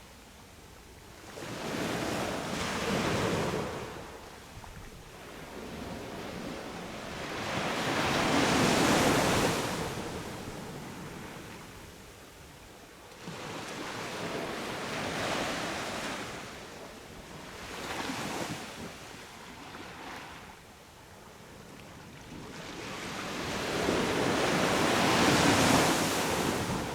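Sea waves breaking and washing up a beach, in slow swells of surf about every five to six seconds, loudest about eight seconds in and again near the end.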